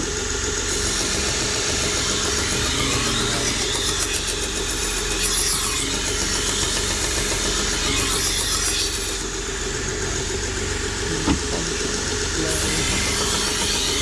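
A 1x30 belt grinder runs steadily with a fine Trizact belt while a knife blade is drawn across it in passes, giving a hissing grind over the motor hum. There is a brief knock about eleven seconds in.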